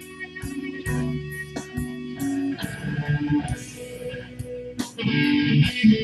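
Electric guitar playing a blues, with single notes and strummed chords over sharp, regular percussive hits.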